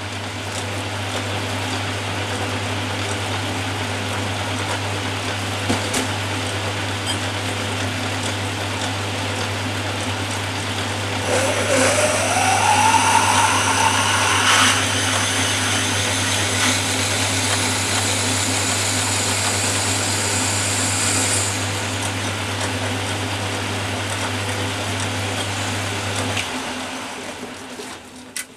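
Atlas 10 lathe running with a steady motor hum while a drill bit bores the washer's centre hole out to final size. About eleven seconds in, the cut adds a high squeal and a rising whine for around ten seconds. The lathe is switched off near the end and winds down.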